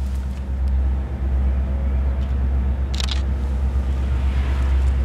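A steady low engine rumble with a faint hum over it, and one brief sharp click about three seconds in.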